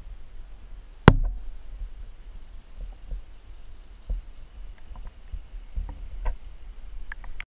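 Muffled underwater sound picked up by a submerged camera: a low rumble with one sharp knock about a second in and a few fainter clicks later, cutting off abruptly near the end.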